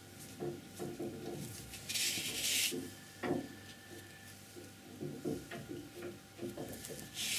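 Soft knocks and rubs of a round brush and hands working on paper at a tabletop, with two short hissing swishes, one about two seconds in and one near the end.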